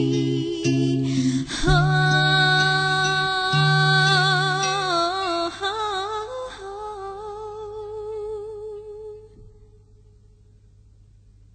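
The final held note of a song: a voice sustains it with wide vibrato over steady low chords that stop about five seconds in. The voice fades out around nine seconds, leaving only faint hiss.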